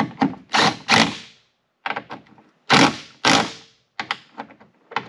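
Cordless impact driver running in a series of short trigger bursts, its hammering rattle starting and stopping as it snugs down 10 mm bolts.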